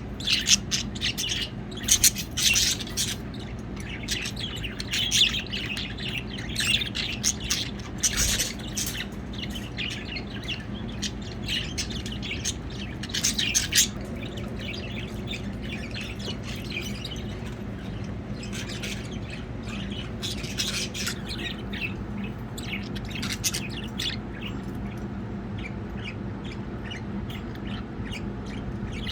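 Budgerigars chirping and squawking in quick short calls, busy at first and thinning out about halfway through.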